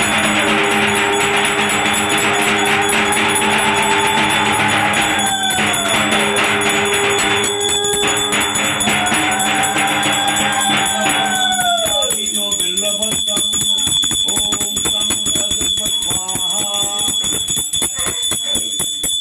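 Brass puja hand bell rung rapidly and continuously during a fire offering, over devotional music with long rising-and-falling tones in the first half.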